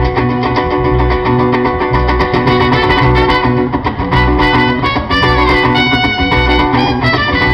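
Live band playing an instrumental passage through the stage PA: plucked strings and electric bass over a cajon beat, with a held melody line on top.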